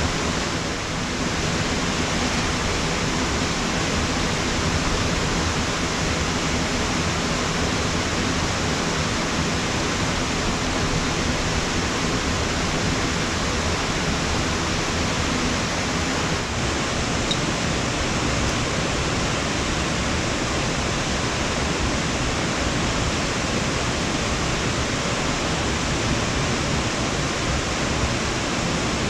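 Steady, even rushing noise with no breaks, and a faint low hum beneath it.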